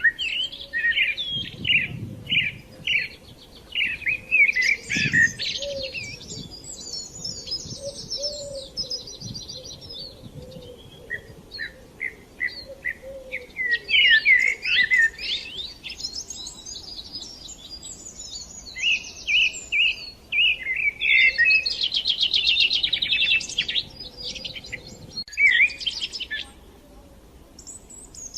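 Songbirds singing: phrases of quick chirps and fast buzzy trills come in bursts, with brief pauses between bouts.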